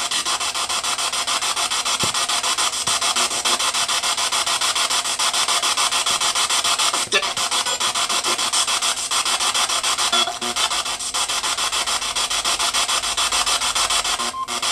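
Spirit box scanning through radio frequencies: a continuous rasping hiss of static, chopped into rapid, even pulses as it sweeps from station to station.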